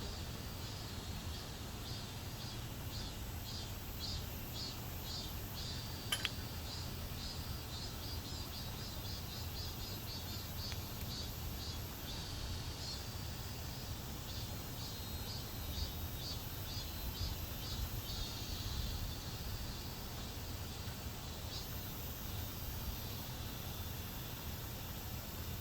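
Insects chirping in quick repeated pulses over a steady low rumble, with a single sharp click about six seconds in.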